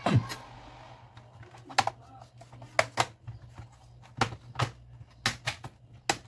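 Sharp irregular clicks and taps of plastic and metal laptop parts being handled and fitted during reassembly of an Asus X441. There are about nine, with a louder knock at the very start.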